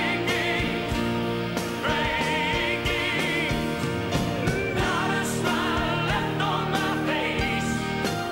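Live rock band playing a song with singing. A voice holds long notes with vibrato over regular drum hits.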